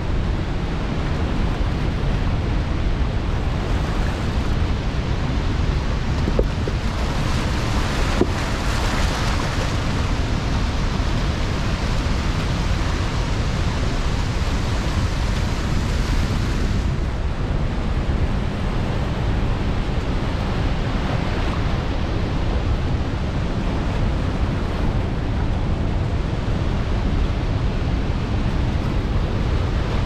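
Steady roar of a broad waterfall in flood, high muddy water pouring over the drop and rushing past the rocks, with wind buffeting the microphone. The hiss grows brighter from about eight seconds in and eases back a little past the middle.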